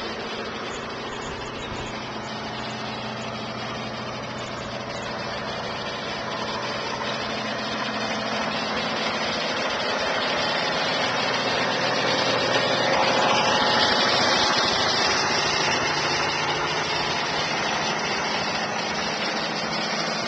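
A machine runs steadily with a low hum. It grows louder toward about two-thirds of the way through, then eases slightly.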